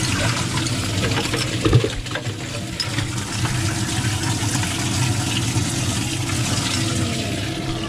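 Water running and splashing over a steady low motor hum, with one short knock about two seconds in.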